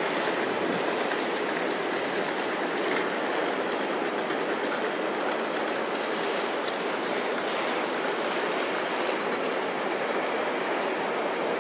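Freight train's wagons rolling past on the station tracks: a steady rumble of wheels on rail, with a faint high squeal from about four to seven seconds in.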